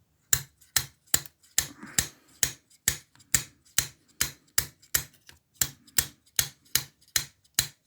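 Homemade pick gun snapping repeatedly into the pins of an older Ruko oval cylinder in a brass and steel padlock: sharp metallic clicks, about two and a half a second, evenly paced. The lock stays in a false set, which points to spool pins.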